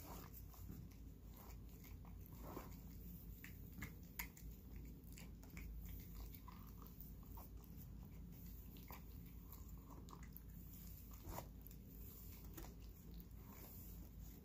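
A cat eating wet paté cat food from a bowl: faint, irregular chewing and smacking clicks.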